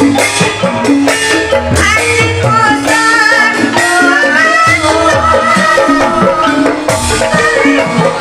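Banyumasan calung ensemble playing live: bamboo xylophones struck with mallets over gong strokes, with a wavering woman's vocal line on top.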